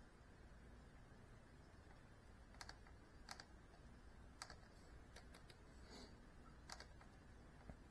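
Near silence: low room hum with about seven faint, sharp clicks at irregular intervals, starting a little over two seconds in.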